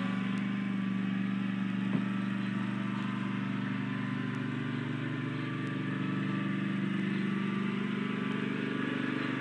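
Riding lawn mower engine running steadily at a constant speed as the mower drives along. A single short knock about two seconds in.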